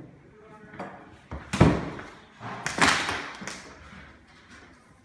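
A room door swinging shut with a loud thud, followed by the scrape and knocks of a plastic chair being pulled out and sat on at a table.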